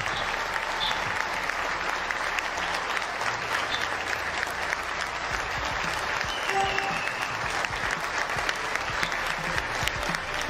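A large roomful of people clapping in steady, sustained applause.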